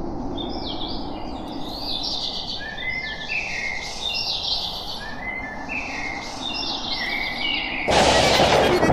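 Birds singing, the same short chirping phrase repeated again and again over a steady low background noise. Near the end a loud burst of sound sets in as music begins.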